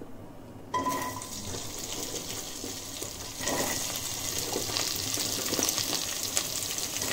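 Cut okra pieces dropped into hot oil in a pot, sizzling. The hiss starts suddenly about a second in and gets louder about halfway through.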